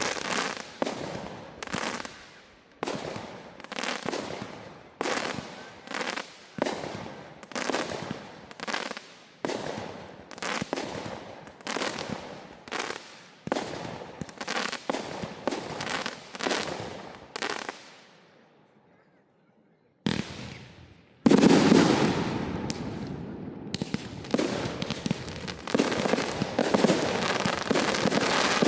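Fireworks display: a quick series of bangs, a little more than one a second, each fading out in a rumble, dying away about 18 seconds in. After a short lull a loud, dense, continuous barrage of bursts starts about 21 seconds in.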